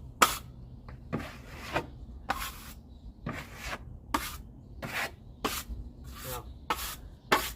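Drywall taping knife scraping joint compound over paper tape on a drywall corner, about eleven short strokes, one to two a second.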